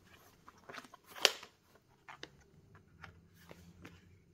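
Handling noises while working on an e-bike: a few light clicks and taps, with one sharper knock about a second in.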